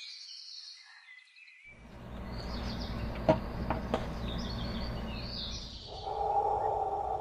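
Small birds chirping outdoors. A low rumble of background noise comes in about a second and a half in, with two sharp clicks midway.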